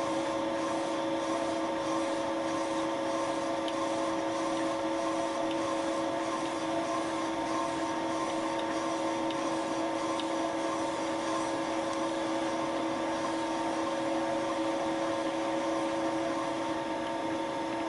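Thiel Duplex 158 milling machine running steadily as its Wohlhaupter UPA5 boring head turns in a plastic lawn-mower bearing seat, boring it out. The machine gives a constant hum made of several steady tones.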